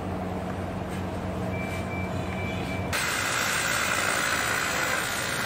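Steady electrical hum of a TIG welding machine. About three seconds in it gives way abruptly to a steady hiss.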